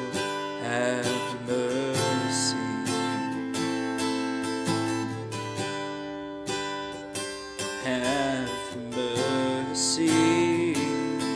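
Music without words: acoustic guitar strummed and picked, over steady held notes.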